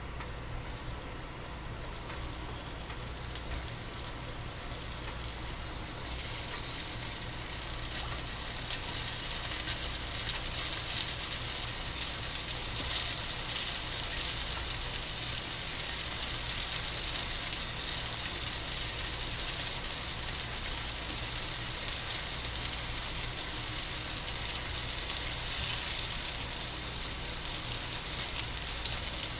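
Flour-coated mushrooms deep-frying in hot oil: a steady sizzle that grows louder several seconds in.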